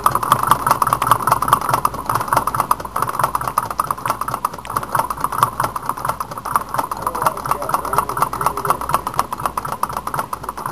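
Homemade Stirling engine running on residual heat after its alcohol flame has gone out, with an even rapid ticking and a pulsing rub. The rubbing comes from the displacer rod dragging; the owner blames its thin brass-wire rod, which is wearing into bumps and ridges.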